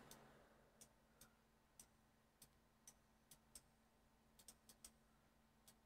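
Faint, irregular clicking of a computer mouse and keyboard, about a dozen sharp clicks spread over the few seconds, some in quick pairs, over near silence.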